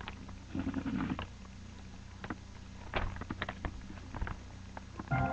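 Quiet room with a steady low hum, a brief faint murmur of a voice about half a second in, and a handful of scattered light clicks.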